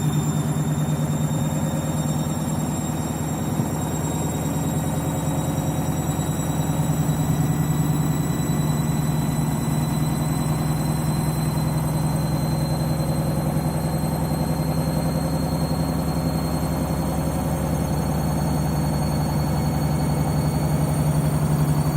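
Candy washing machine spinning an overloaded, unbalanced load of whites: a steady low hum with a fast pulsing from the turning drum, and a high motor whine that climbs slowly as the spin speed rises.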